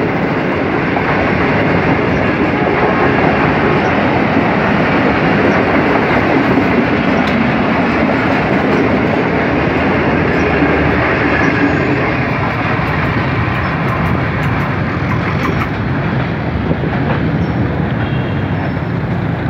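Pakistan Railways passenger coaches rolling past close by as the train pulls out, their steel wheels running steadily on the rails. The sound eases slightly in the second half as the last coach goes by.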